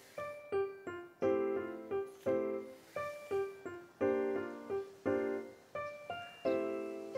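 Background music: a light, bouncy piano or keyboard tune of plucked-sounding chords and single notes, each struck and dying away, in a steady rhythm.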